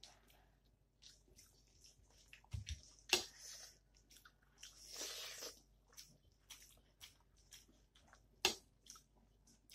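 Close-up wet eating sounds: chewing and mouth smacks while eating rice and dal by hand, with fingers squishing and mixing rice on the plate. Short soft clicks throughout, with two sharp, louder clicks about three seconds in and near the end, and a brief wet rustle about five seconds in.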